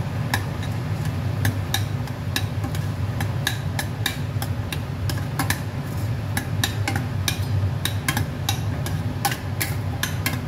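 Metal spoon stirring a thick mixture in a stainless steel pot, clinking and scraping against the pot's side in irregular ticks, several a second at times, over a steady low hum.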